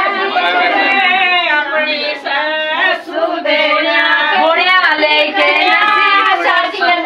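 Women singing a traditional wedding song in high voices, unaccompanied, with held, gliding notes and short breaks between phrases.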